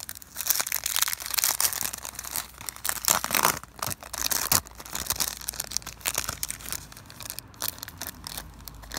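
Small plastic packet of sequins crinkling as it is shaken and tipped out, with sequins sprinkling into a tub of slime. The rustling is busiest in the first half and lighter after about four and a half seconds.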